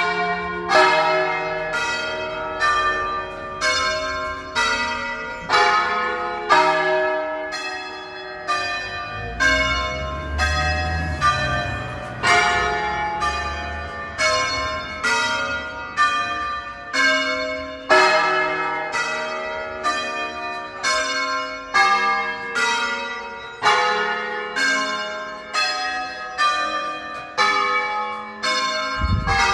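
Church bells of a 13-bell ring in E-flat major rung in the Veronese concert style, nine of the largest bells struck in turn by a team of ringers. Notes follow in a steady succession, a loud stroke about once a second, each bell's tone ringing on and overlapping the next.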